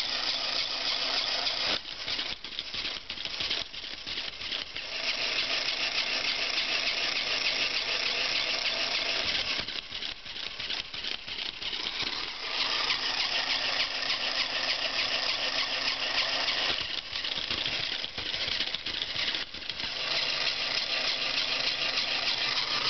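The battery-operated 1988 Crazy Chicken toy's small motor and gears are whirring and rattling as it flaps its wings and walks. The sound is steady, but three times it breaks into a stutter for a few seconds. The chirp the toy is supposed to make is not heard.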